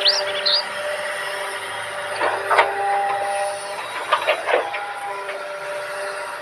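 Huina radio-controlled model excavator's small electric motors whining steadily, with a higher whine joining in the middle and a few short scraping rattles as it works.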